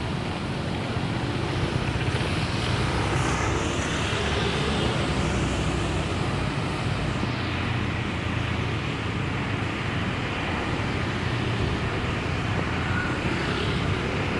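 Steady street background noise with a continuous rumble of passing traffic.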